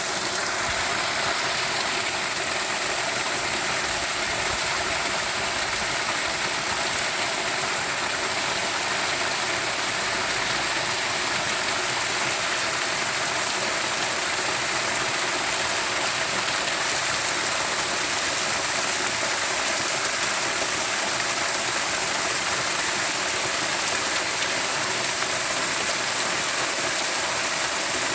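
Steady rushing of a flowing stream, an even hiss of water with no breaks.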